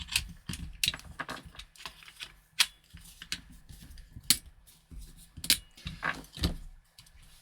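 Irregular sharp clicks and knocks of hard plastic and metal parts being handled, as on an airsoft rifle being worked on by hand. A few louder knocks stand out.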